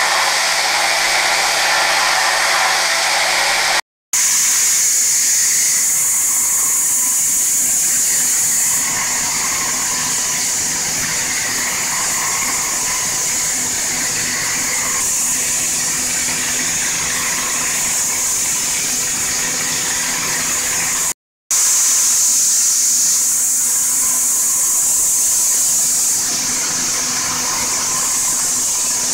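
Okuma GENOS M560-V vertical machining centre hard-milling S7 tool steel at 56 Rc: the spindle and small end mill make a steady, high-pitched hiss while taking light rest-roughing and Z-level finishing passes. The sound breaks off twice for an instant.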